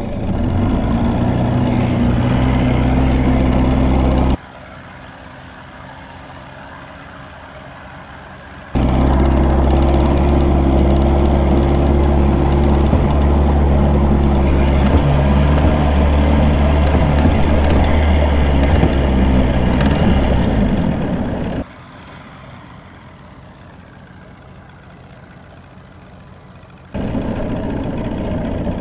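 Outboard motor on a small aluminium boat running steadily under way. It drops out suddenly twice, about four seconds in and again around twenty-one seconds, leaving only a quieter even hiss for several seconds each time before the running sound returns.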